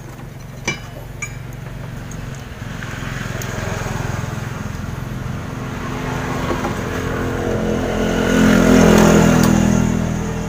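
A motor vehicle engine passing close by, growing louder over several seconds to a peak near the end, then starting to fade. A single sharp click sounds about a second in.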